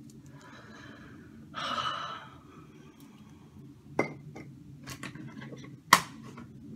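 A woman's breathy exhale lasting under a second, followed by a few sharp clicks and taps, the loudest near the end.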